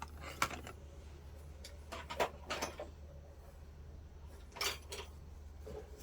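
Handling noise: a few short clicks and clatters of small hard objects being moved, about five in all, over a steady low hum.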